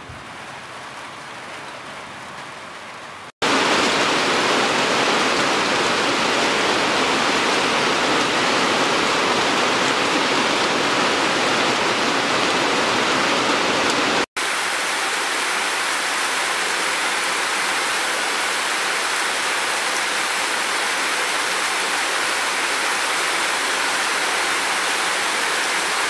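Steady rain. About three seconds in it cuts abruptly to a much louder, dense downpour, and a little past halfway it cuts again to slightly quieter, steady heavy rain.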